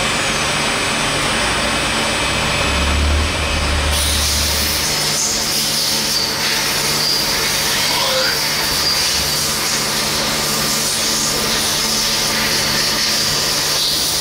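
Müga XP4 42 SM CNC lathe running, its spindles turning with a steady mechanical hum. A deeper rumble swells from about three to five seconds in, and about four seconds in a higher hiss joins the hum.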